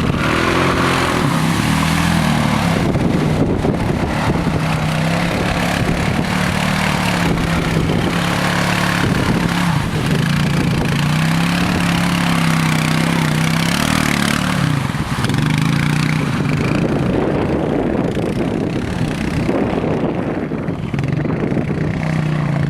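Small ATV (quad) engine running as it is ridden around a muddy lot, its pitch rising and falling again and again with the throttle through the turns.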